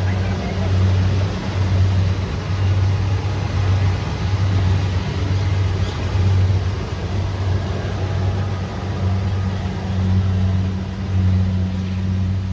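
Kubota DC70 Pro combine harvester running steadily at work: a diesel engine's low hum that swells and fades about once a second, over the noise of the machinery.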